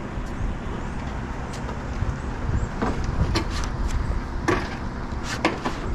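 Scattered sharp knocks and taps of roofing work, with the materials and tools being handled, over a steady low rumble.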